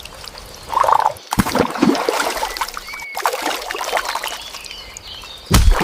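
Water splashing and irregular plastic clicks and knocks as a muddy plastic toy is washed by hand, with a louder thump near the end.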